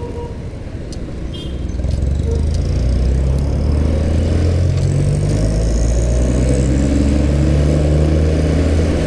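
Motorcycle engine running while riding along a road, getting louder about two seconds in and then holding steady.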